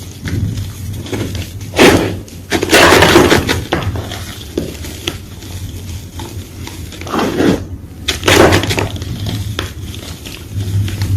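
White gym chalk being crunched and crushed in irregular bursts of crisp crackling with short pauses between. The loudest crunches come about two seconds in, around three seconds, and around eight seconds. A faint steady low hum runs underneath.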